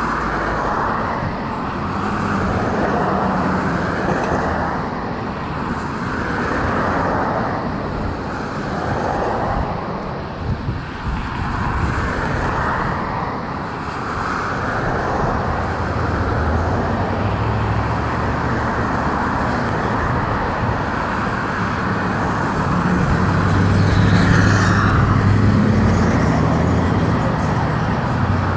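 Street traffic noise: cars passing by in waves, with a vehicle engine's low hum coming in around the middle and growing louder later on.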